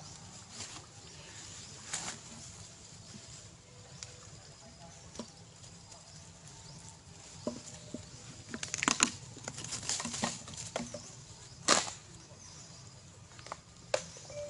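Long-tailed macaques moving through shallow water and grass: scattered short splashes and rustles, thickest about two-thirds of the way through, with a single sharp one shortly after.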